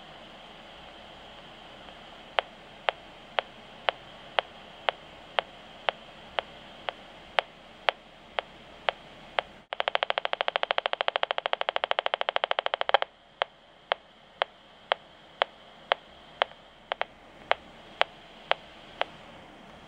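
RF meter's speaker sounding the pulsed microwave signal from a Bluetooth earpiece: sharp clicks about twice a second, breaking about halfway into a rapid buzz of pulses for some three seconds, then back to the steady clicks, over a low hiss.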